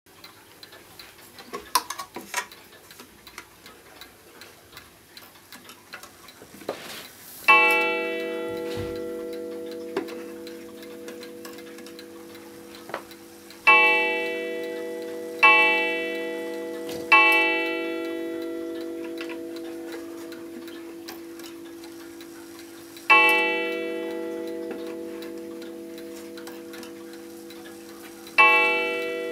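New Haven mantel clock ticking with light clicks, then its strike mechanism sounding six single strikes at uneven intervals, each a ringing metallic tone that fades slowly.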